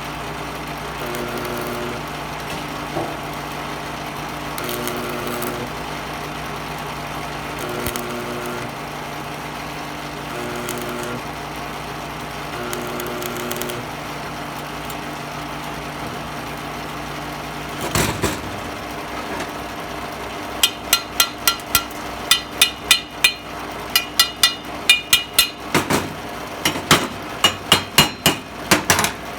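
A steady machine hum, then, from about two-thirds of the way in, a rapid run of sharp hammer strikes on metal, about three a second: a chipping hammer knocking slag off a stick weld.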